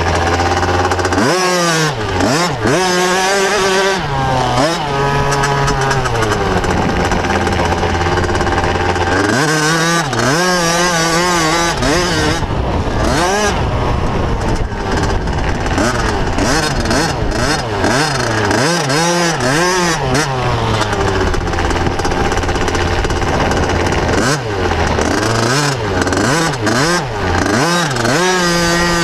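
Motocross bike engine heard from a camera on its handlebars, revving up and down as it is ridden around a dirt track. The pitch climbs and drops again and again with throttle and gear changes, with a few stretches held steady.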